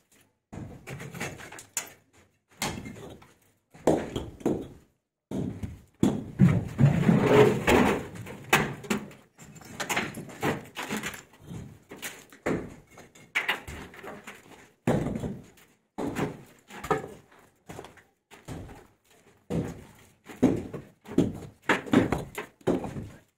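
Concrete blocks being lifted off a stack and set down, giving repeated irregular knocks and thuds of block against block, with a louder stretch of clattering about a quarter of the way in. The blocks are the temporary support being cleared from under a freshly built brick arch.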